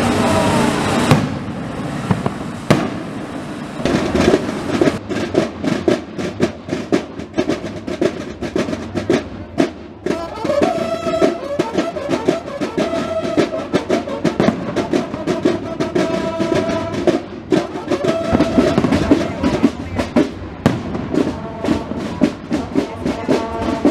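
Drum corps practising: fast, steady snare drumming with rolls, and from about ten seconds in, horns sounding held notes over the drums.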